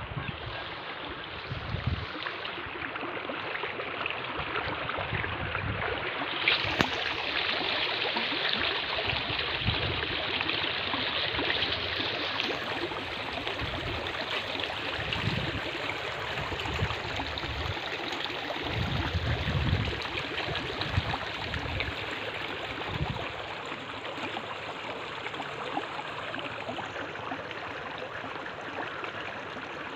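Fast floodwater rushing and swirling through a brick culvert under a small bridge, a steady rushing of water. Now and then a low rumble of wind buffets the microphone.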